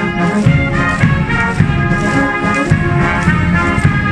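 Military marching band's brass playing a tune, trombones and trumpets sounding held notes that change from note to note.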